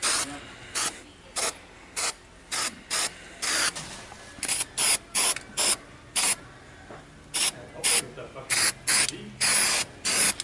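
Aerosol can of 3M weld-through primer, a copper-and-zinc corrosion coating, spraying onto bare sheet steel in about twenty short hissing bursts, a few a second, with one longer spray near the end.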